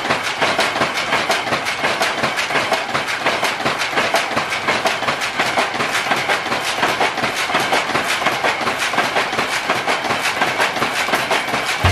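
Motor-driven wooden power loom weaving, its mechanism clattering in a fast, even rhythm.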